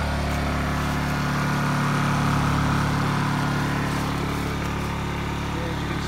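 Honda EU2000 inverter generator's small single-cylinder four-stroke engine running steadily with nothing drawing power from it yet.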